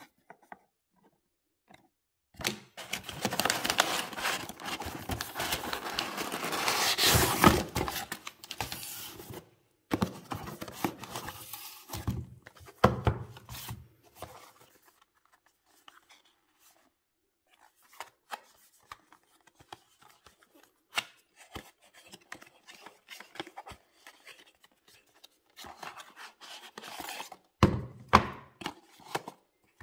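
Unboxing handling noise. Crumpled kraft packing paper and a cardboard shipping box rustle and crackle for several seconds, followed by shorter rustles and small taps as a cardboard watch box and the metal tin inside it are handled, with a single thump near the end.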